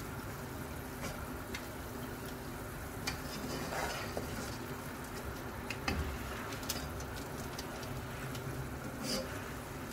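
Spiced water boiling hard in a pot, a steady bubbling hiss, with a metal slotted skimmer clicking against the pot a few times as debris is lifted out.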